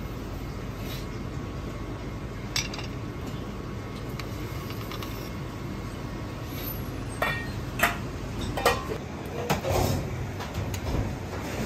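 Clinks of porcelain dishes and cutlery in a commercial kitchen: one about a quarter of the way in and several more in the second half, over a steady low kitchen hum.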